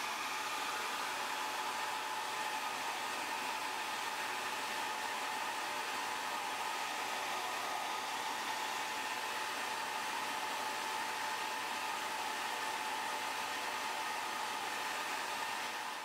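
Hair dryer blowing steadily, a constant rush of air with a faint steady whine, heating the phone's glass to soften the adhesive that holds the digitizer.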